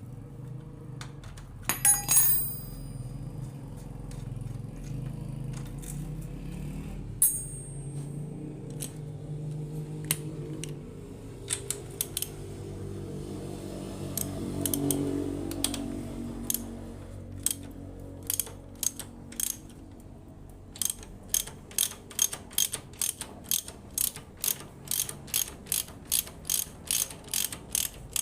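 Rear wheel hub and drum brake of a Honda motorcycle turning, ticking over a steady low hum: a few scattered clicks at first, then a regular click about twice a second. The clicking is the brake and hub noise the repair sets out to cure.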